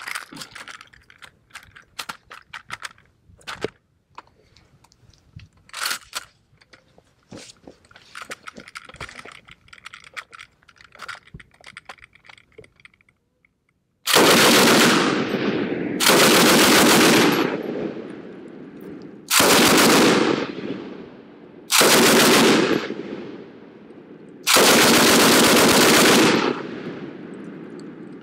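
Light clicks and knocks of a .303 Lewis light machine gun being handled with its pan magazine fitted. About halfway through, the gun fires five bursts of automatic fire, each lasting a second or so and echoing after it stops.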